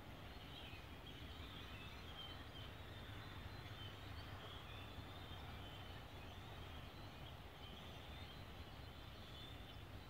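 Distant flock of white waterbirds calling faintly: a continuous high chatter of overlapping calls over a low steady rumble.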